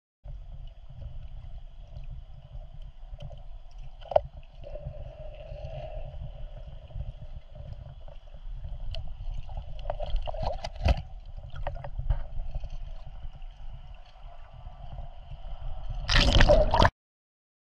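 Water heard from a GoPro camera held underwater: a muffled, gurgling low rumble with a few sharp clicks. About a second before the end there is a loud burst of rushing, splashing water, and then the sound cuts off.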